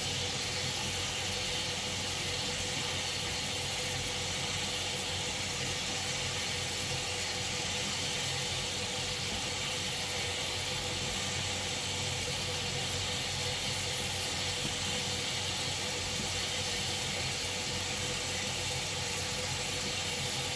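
Tap water running steadily into a stainless steel sink, splashing on the metal sink floor and flowing to the drain, with a faint steady hum underneath.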